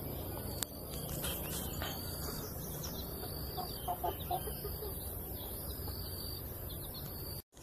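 Chickens clucking faintly over steady outdoor background noise, with a few short clucks about halfway through.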